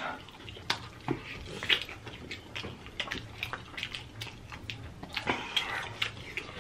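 Wet chewing and lip smacking of two people eating sauce-covered chicken wings, with irregular short smacks and clicks as the meat is pulled off the bones.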